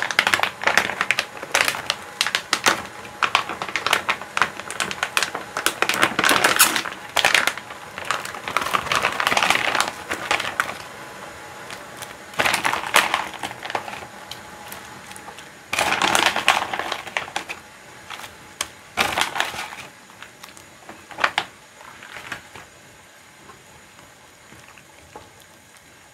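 Plastic bag of frozen dumplings crinkling and rustling in irregular bursts as it is handled and shaken. It dies down after about twenty seconds.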